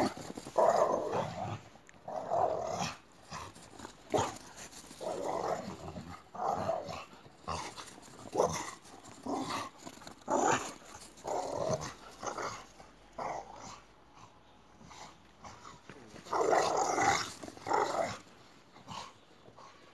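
Boxer dogs play-growling as they chase each other, in short repeated bursts, with a longer, louder spell near the end.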